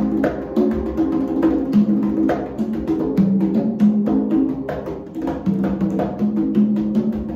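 A set of five congas played with bare hands in a fast free improvisation: a dense, unbroken stream of hand strokes over an ambient backing track.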